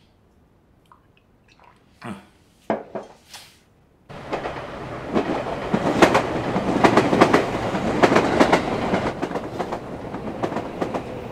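A few seconds of quiet with a couple of brief soft sounds. About four seconds in, an electric commuter train crossing a steel truss railway bridge starts up suddenly and loudly: a continuous rumble and rattle with rapid clickety-clack from its wheels.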